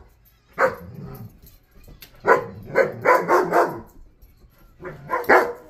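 Dogs barking indoors in short, sharp barks: a single bark, then another, then a quick run of about four, then two more near the end.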